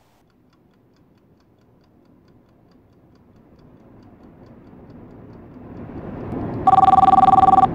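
Car road and engine noise fading in and building steadily, heard from inside a moving car. Near the end a phone rings once with a loud, fast-warbling two-tone ring that cuts off suddenly.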